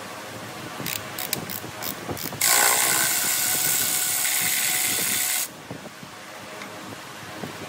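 A hand ratchet wrench clicking in a short irregular run, then a loud steady hiss lasting about three seconds that starts and cuts off abruptly.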